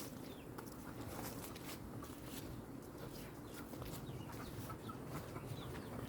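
Steady rushing wash of heavy rain and runoff water, with faint short chirps of birds scattered through it.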